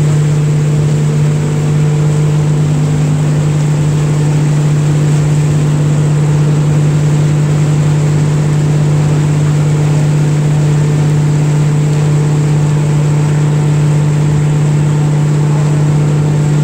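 Tour boat's engine running at a steady cruising drone, with water rushing past the hull.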